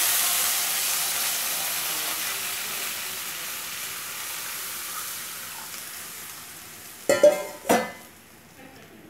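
Water poured into hot tempering oil in a kadai, sizzling and hissing, the sizzle dying away steadily as the water covers the oil. About seven seconds in, two sharp metallic clanks.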